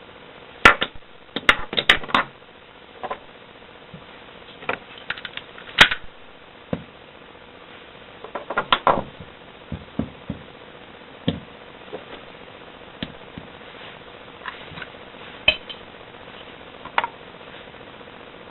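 Parts of a field-stripped KJW Glock airsoft pistol being handled and laid out: scattered clicks and knocks as the pieces are set down, with a faint steady hum behind.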